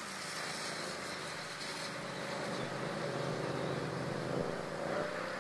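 A motor engine running steadily in the background, an even drone without breaks.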